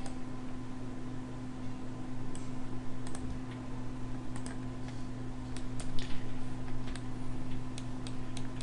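Clicks of a computer mouse and keyboard at irregular intervals, over a steady low hum.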